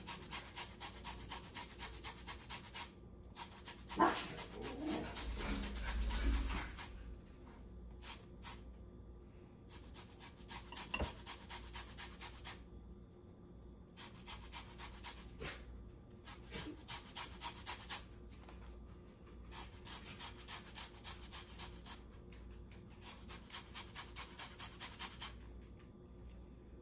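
A lemon being zested on a grater: a rapid, even run of rasping strokes that stops and starts in several spells.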